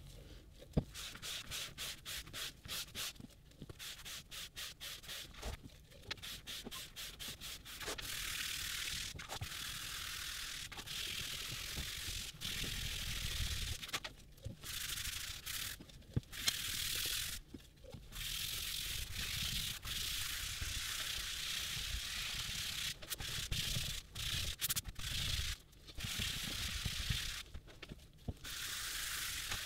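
A sponge dauber rubbing diluted leather dye over vegetable-tanned leather: quick short strokes at first, then longer sweeps with brief pauses.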